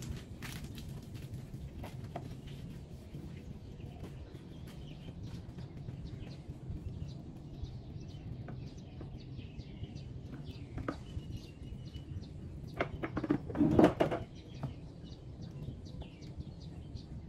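Birds chirping over a steady low background hum, with a short burst of knocks and clatter about 13 seconds in.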